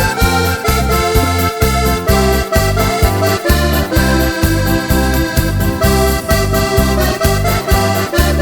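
Background music with accordion over a steady, bouncing bass beat.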